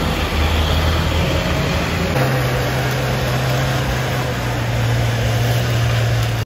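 Heavy truck engine labouring on a steep climb, over a broad hiss that fits heavy rain on the road. About two seconds in, the sound changes to a steady low engine drone as a loaded truck strains up the hairpin, its rear tyres smoking.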